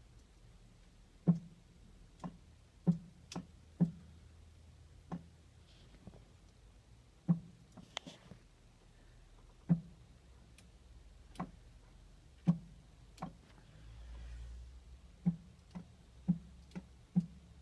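1978 GMC motorhome's dual fuel tank selector valve clicking over, with a short thud at each switch, as the dash toggle switch is flipped back and forth: about eighteen sharp clicks, irregularly spaced, some close together. The valve switches from one tank to the other at every flip, a sign that the switch wiring, whose poor connection had been cutting out the fuel supply, is now making solid contact.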